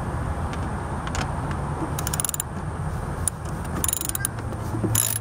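Socket ratchet with an extension loosening 10 mm nuts, its pawl clicking in short bursts.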